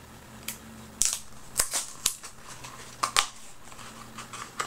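A small printed cardboard box being opened by hand: the flap and card scrape and snap in a handful of short, sharp clicks and rustles.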